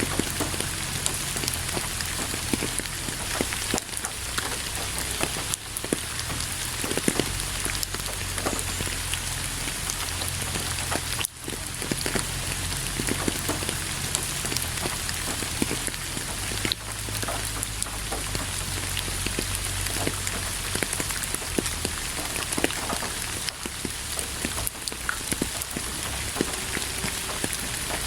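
Steady rain falling, with many individual drops heard as sharp ticks through the hiss. The sound briefly drops away about eleven seconds in.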